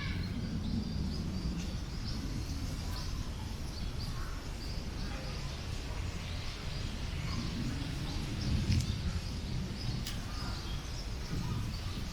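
Strong wind buffeting the microphone in a steady low rumble, with birds calling in the background and a couple of sharp clicks in the second half.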